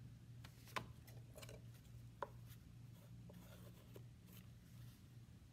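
Near silence with faint handling sounds of clay work: a damp sponge rubbed and dabbed along the edge of a clay slab, with two light taps, about one and two seconds in. A steady low hum runs underneath.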